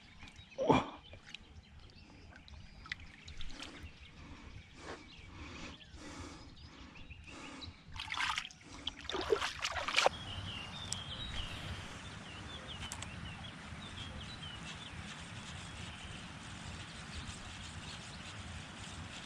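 Water splashing and sloshing a few times, loudest about a second in and again around the middle, then a steady outdoor hiss with small birds chirping.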